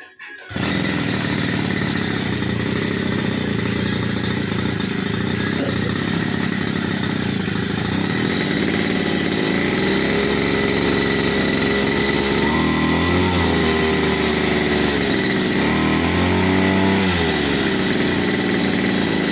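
Small petrol engine of a grass-cutting machine running steadily, with two brief revs, rising and falling in pitch, in the second half.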